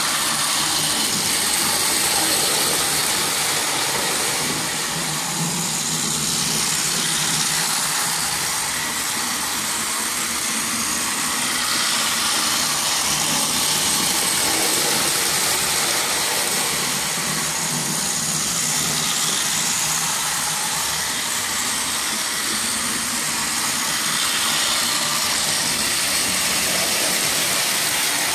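Power Trains toy train's small electric motor whirring steadily as it runs around plastic track, swelling and fading gently every few seconds as it circles.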